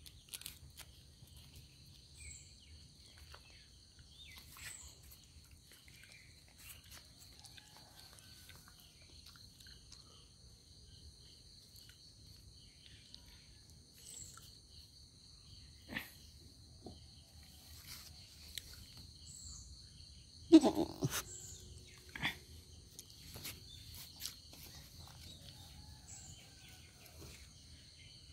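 Steady high chirring of insects, with scattered faint chirps and clicks. About twenty seconds in, a short, loud, low animal cry breaks in, followed by a couple of smaller calls.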